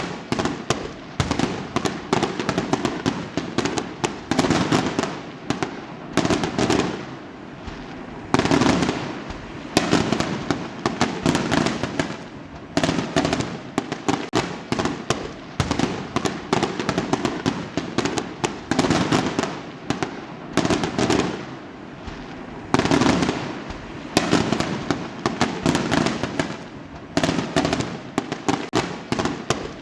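Fireworks going off in rapid, continuous succession: a dense barrage of sharp bangs and pops, with louder clusters about a third of the way in and again past the two-thirds mark.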